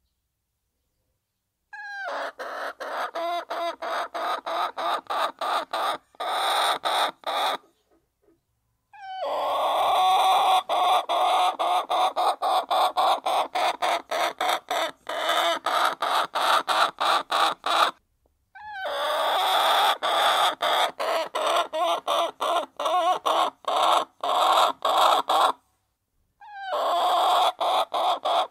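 Flock of hens clucking while pecking at feed, with rapid sharp pecks about three or four a second over a steady murmur of clucks. The sound comes in stretches of several seconds broken by brief silences.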